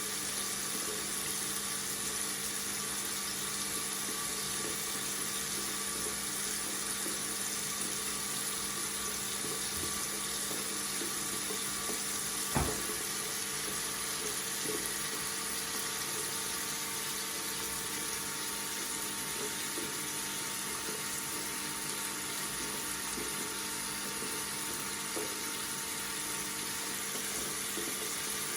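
Water tap running steadily into a sink, an even rushing stream. One brief click about halfway through.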